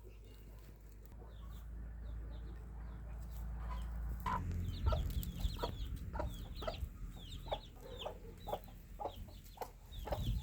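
Chickens clucking in a quick run of short, repeated calls, starting about four seconds in, after a low steady rumble.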